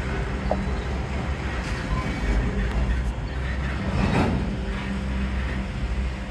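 EMD GP38-2 diesel locomotive running steadily at low power, a continuous low rumble, as it shoves a freight train's cars slowly along the track.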